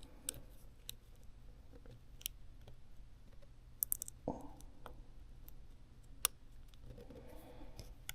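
Faint, scattered small clicks and taps from handling a phone's internal parts, with a quick cluster of clicks near the middle, as a misaligned ribbon-cable connector is pressed but will not click into place.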